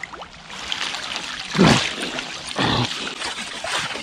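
Water splashing and trickling in a hole chopped through pond ice as a man surfaces and hauls himself out of the icy water, with two louder surges about a second apart near the middle.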